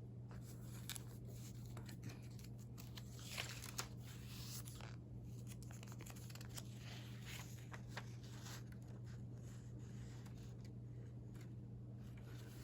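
Faint rustling and crinkling of old newspaper-clipping pages being handled and turned in a binder, with a few soft scrapes, over a steady low hum.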